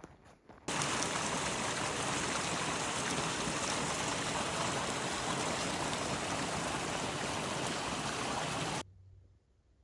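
Steady rush of running water from a mountain stream or rapids, cutting in sharply under a second in and cutting off suddenly near the end.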